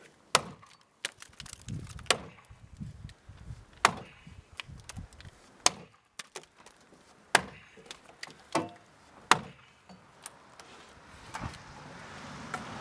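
Axe chopping into a wooden block from a springboard: about ten sharp woody strikes, spaced irregularly every one to two seconds. A rushing noise builds near the end.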